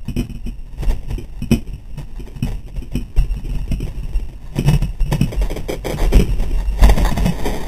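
Skateboard riding over stone paving slabs: the wheels clack irregularly across the joints over a steady low rolling rumble, with a louder rush of noise near the end.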